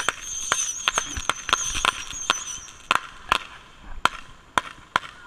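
A ground fountain firework spraying sparks, with a wavering high whistle for about the first three seconds. Irregular sharp pops and cracks sound among it and go on after the whistle stops.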